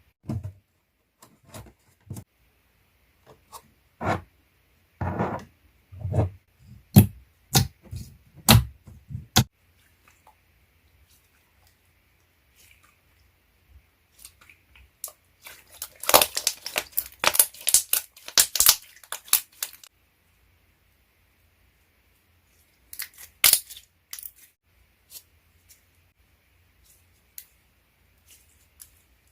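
Slime packaging and containers being handled: a series of separate knocks and taps, then a few seconds of dense crinkling and tearing about halfway through, and scattered clicks after it.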